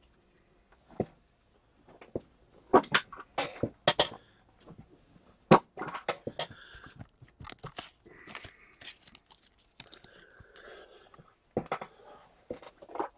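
Handling noise of trading cards and card packaging on a table: scattered sharp clicks and taps with light crinkling, the loudest clicks about three, four and five and a half seconds in.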